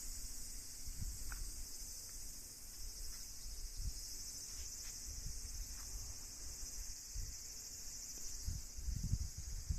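Steady high-pitched chirring of an insect chorus, with irregular low rumbling bumps that are strongest near the end.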